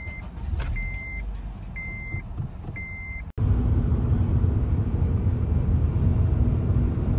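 A 2006 Acura TSX's dashboard chime beeps four times, about a second apart, over a low rumble. About three and a half seconds in it cuts to the louder, steady engine and road noise inside the TSX's cabin while cruising on the highway.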